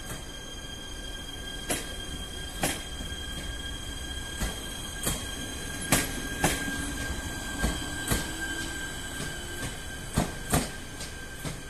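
Electric passenger train pulling out through the station: its wheels clack irregularly over rail joints and points, over a steady high whine.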